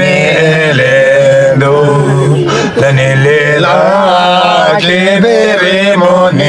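Men singing a Hyolmo (Yolmo) folk song together, unaccompanied, in a slow chant-like style. The drawn-out notes waver in pitch over a low note held steadily beneath, with a brief breath pause a little under three seconds in.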